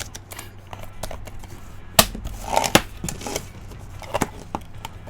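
Hard plastic toy parts being handled: a few sharp clicks and light rattles as Advent cards are fitted into the DX V-Buckle's card deck. The loudest click comes about two seconds in, another just under three seconds in, and smaller ones follow.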